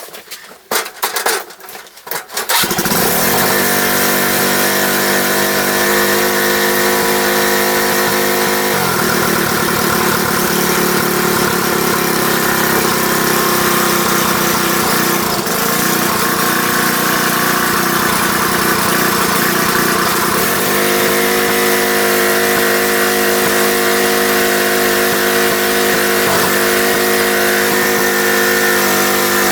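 Riding lawn mower engine running, coming in abruptly about two seconds in after a few knocks and handling noises. Its speed drops for a stretch in the middle and picks up again near the end.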